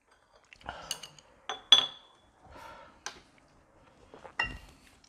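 Chopsticks tapping and scraping on a metal sheet pan: about five light clinks, the loudest just under two seconds in, some with a short high ring.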